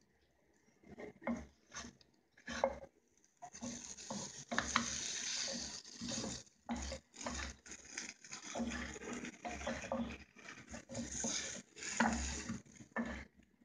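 A wooden spatula scraping and turning frying chebupeli pastries in a non-stick frying pan, in uneven strokes, with the hot oil sizzling under them.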